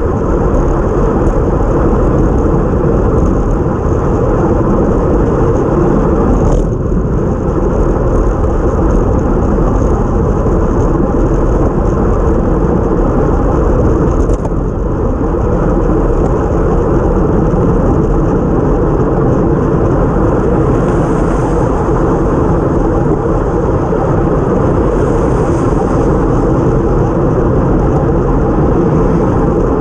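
Steady rush of wind and tyre noise picked up by a GoPro mounted on a time-trial bike ridden at racing speed on a wet road.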